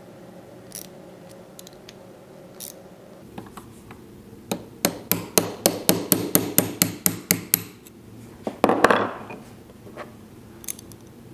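A hammer tapping a punch set in the notch of a doweling jig's metal adjustment plate: a quick run of about fifteen light taps, about five a second, then one louder knock near the end. The taps nudge the loosened plate to re-center the jig.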